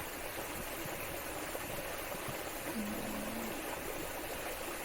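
Steady rush of flowing water from a stream or small waterfall.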